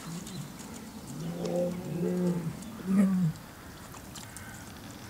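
A low cooing animal call in four short notes, the second and third longer than the others.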